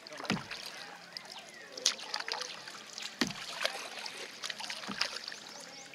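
Kayak paddle strokes dipping into river water, four short splashes about a second and a half apart, with water trickling and sloshing off the blades between them.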